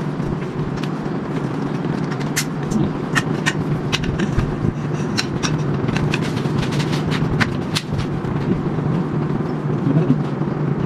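Metal tent-frame poles clicking and knocking as they are slotted into the joints and raised, many scattered sharp taps over a steady low hum.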